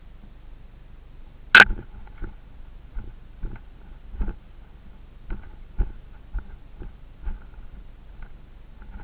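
Irregular knocks and thumps, with one sharp loud knock about a second and a half in and softer ones every half second or so after it.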